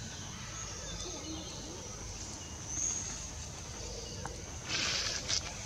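Forest ambience: a steady high insect drone that swells briefly about three seconds in, over a low rumble, with a short rustling burst near the end.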